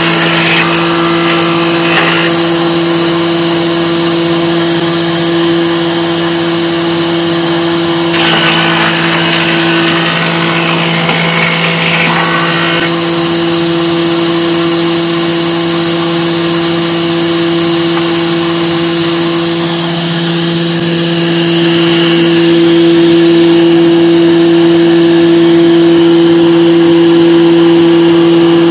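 PF16 combination woodworking machine running in its planer-thicknesser mode: a steady motor and cutterhead hum. Three stretches of louder, hissier noise come in over it, near the start, for several seconds in the middle, and briefly about two thirds of the way in.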